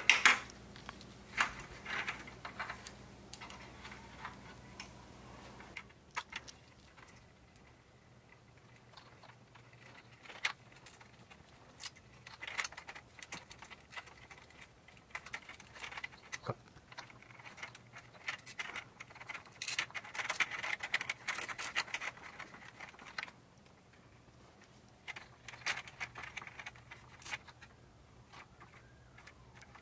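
Small clicks, taps and scraping of a hex key and hard plastic parts as a 3D-printed camera bracket is screwed onto a plastic grille frame, coming in scattered bursts.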